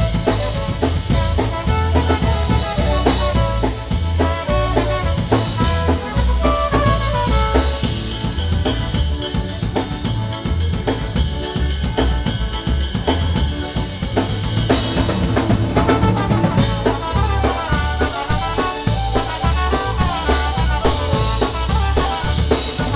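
Live polka band playing: clarinet and trumpet lead over electric bass and a drum kit keeping a steady beat.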